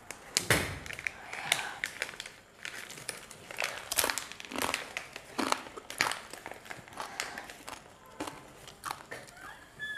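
Foil snack wrapper crinkling and tearing as it is unwrapped by hand, in irregular sharp crackles.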